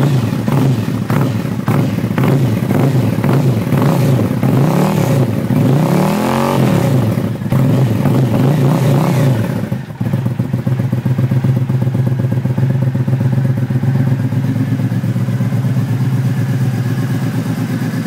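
2009 Triumph Speedmaster's 865 cc parallel-twin running through stock pipes with bored-out baffles, revved up and down several times. It settles into a steady idle about ten seconds in.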